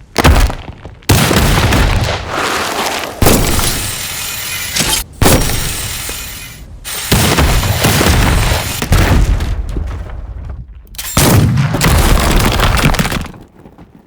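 Layered sound-design effects for an anime fight: a run of heavy booms, crashes and breaking hits. There are about six big hits, each starting suddenly and tailing off, the last about eleven seconds in, and the sound fades out near the end.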